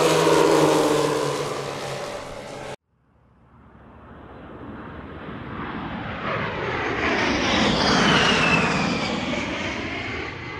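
The four gas engines of a large scale RC Lockheed Super Constellation running as it flies past, fading, then cut off abruptly a little under three seconds in. After a moment's silence, a whoosh sound effect swells up to a peak and fades, with a falling whistling tone at its height.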